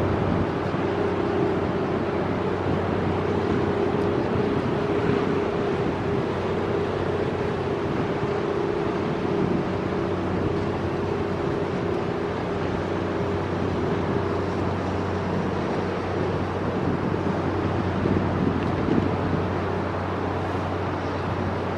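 Steady drone of a large Ro-Ro passenger ferry's machinery heard across the harbour as the ship pulls away from its berth, a constant hum with a few held tones. Wind rumbles on the microphone throughout.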